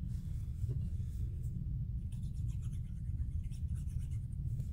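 Faint scratching and rubbing of cardstock pieces being handled and worked at the craft table, in a quick run of light strokes about halfway through, over a steady low hum.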